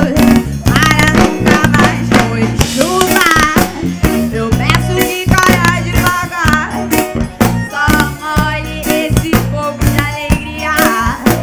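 A woman singing a forró song live into a microphone, backed by a band with electric bass, drum kit and keyboards.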